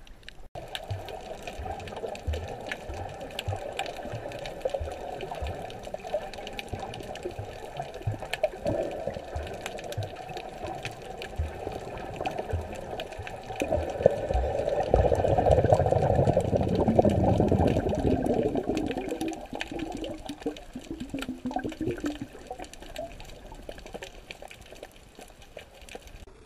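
Muffled underwater water noise picked up by a camera below the surface, with irregular low knocks. It swells louder for a few seconds about halfway through, then fades.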